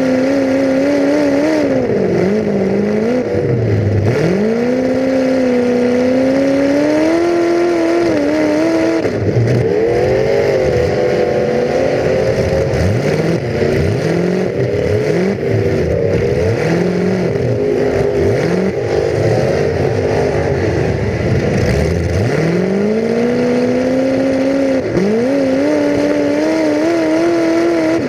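Full-size demolition derby car's engine revving hard, heard from inside the car, its pitch rising and falling as the driver works the throttle. Through the middle stretch it swings up and down in quick short revs, about once a second, before settling into longer pulls again.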